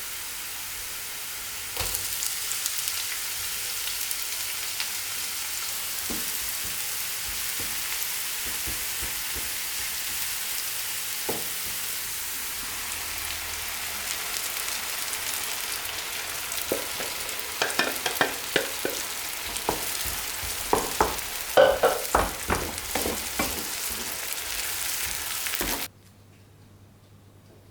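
Food sizzling as it fries in a pan, a steady hiss, with a utensil clinking and scraping against the pan in the second half. The sizzle cuts off suddenly near the end.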